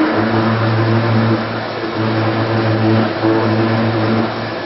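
High-speed milling machine machining a metal mold block with an end mill: steady cutting and spindle noise with a low hum that drops out briefly every second or so.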